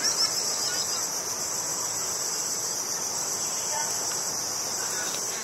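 Steady, high-pitched chorus of insects, with a few faint short chirps in the first second. It fades out at the end.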